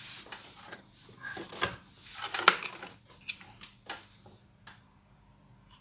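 Irregular small clicks and taps of a plastic mobile-charger case and circuit board being handled and fitted together, the loudest knock about halfway through, fewer towards the end.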